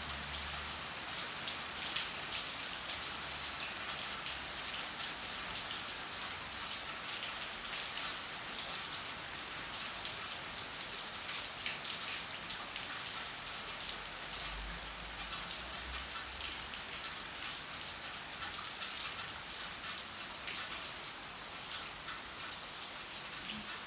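Steady rain falling, an even hiss with many individual drops heard as fine ticks throughout.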